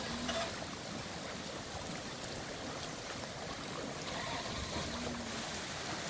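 Steady rush of muddy flash-flood water flowing across a wadi bed.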